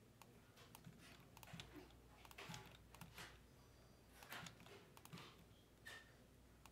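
Faint typing on a computer keyboard: irregular, scattered key clicks.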